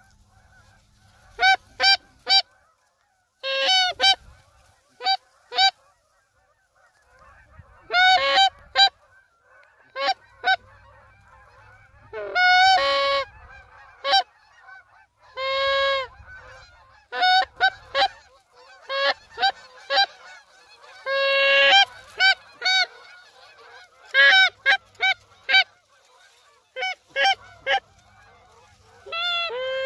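Canada geese honking loudly and irregularly: short single honks, quick runs of two or three, and a few longer drawn-out calls.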